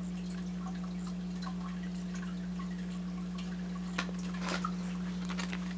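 A steady low hum runs under faint scattered ticks. About four seconds in there is a light click, then a soft rustle near the end, as packaged store items are handled.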